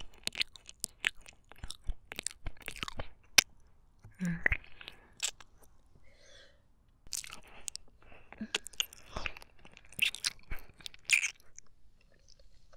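Close-miked wet mouth sounds from a woman: licking, lip smacks and tongue clicks, coming irregularly with a few short breaths between.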